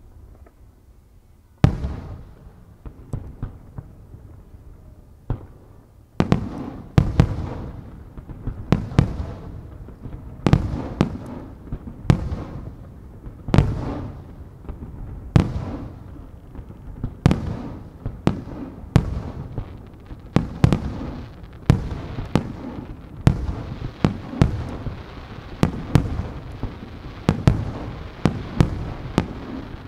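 Aerial firework shells bursting with sharp bangs, quiet for the first second and a half, then a few spaced reports, and from about six seconds in a steady run of roughly one bang a second. A continuous hiss and crackle fills the gaps between bangs.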